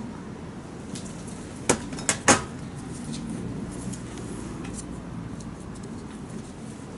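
Three sharp clinks close together about two seconds in, like hard objects being knocked or set down, over a low steady hum.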